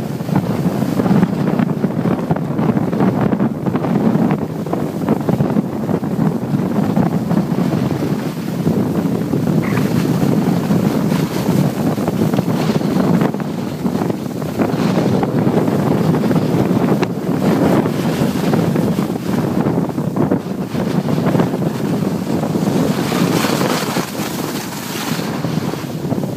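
Wind rushing and buffeting over the microphone of a camera carried by a skier moving downhill, mixed with the hiss of skis sliding on packed snow, which gets brighter near the end.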